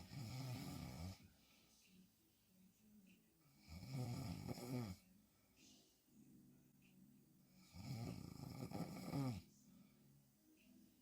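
A woman snoring hard through a wide-open mouth while lying on her back. Three snores come about four seconds apart, each lasting about a second, with quieter breathing between them.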